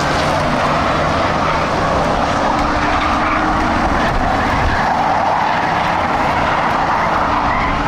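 Several Ford Crown Victoria race cars running at speed around a dirt oval. Their V8 engines blend into one loud, steady drone.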